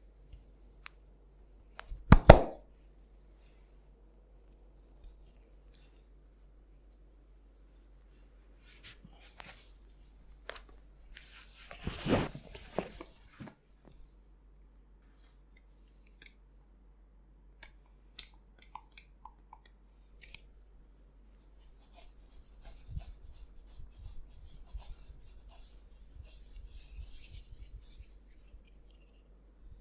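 Hands massaging skin and hair: rubbing and brushing, with one sharp smack about two seconds in, a louder stretch of rubbing near the middle, and softer, quicker rubbing with light taps near the end.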